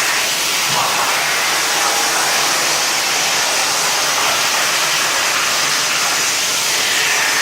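Procut 25 CNC plasma cutter's torch running, a steady hiss of the plasma arc and air jet.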